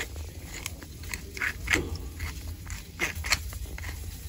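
Seasoning grinder crunching salt over a pot of mashed potatoes in two short spells of twists, about a second in and again about three seconds in.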